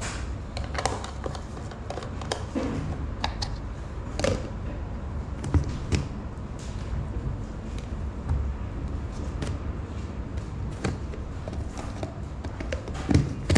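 Scattered clicks and knocks of a plastic blender jar and its lid being handled and fitted, over a low rumble; the blender motor is not running.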